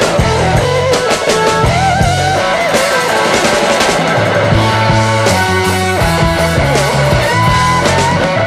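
Rock music: a lead guitar with bending notes over a bass line and drums.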